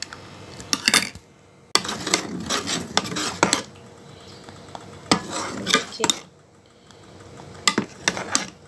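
Steel spoon stirring custard in a metal saucepan, scraping and clinking against the pan's sides and bottom in several bouts with short pauses.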